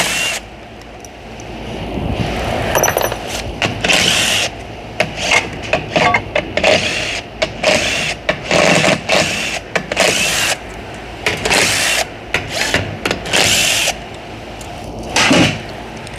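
Power tool on a 12 mm socket spinning bolts out of a CVT transmission case, run in short bursts of about a second, over and over with brief pauses between.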